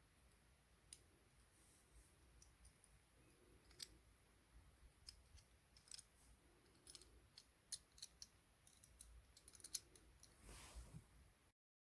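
Faint, irregular small clicks and taps of diecast model-car parts being handled and fitted together, with a short soft rush near the end before the sound cuts off.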